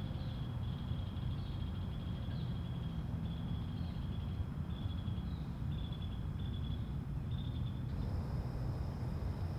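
Early-morning outdoor ambience: a steady low rumble under a high, thin chirring trill that repeats in short phrases under a second apart. About 8 seconds in, the trill gives way to a steadier, higher whine while the rumble carries on.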